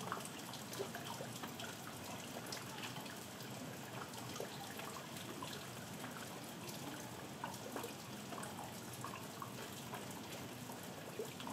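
Steady rain with many scattered, irregular drops and drips falling.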